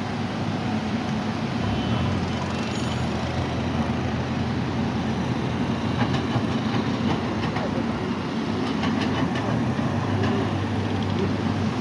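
A vehicle engine running steadily with a low rumble, with some rattling and clicking from about six seconds in.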